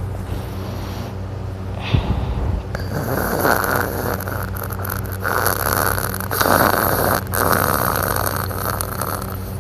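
A sleeping man snoring: a quieter breath at first, then about three seconds in a long, loud, rasping snore that breaks off briefly twice before carrying on.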